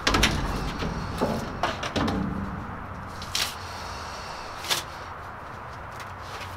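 A heavy thump and rattle as a person drops onto the metal floor of a horse trailer, followed by a few lighter knocks and scuffs in the metal box, and two short hisses near the middle.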